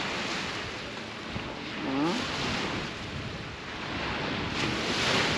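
Surf washing onto the shore, with wind on the microphone; the wash swells about two seconds in and again near the end.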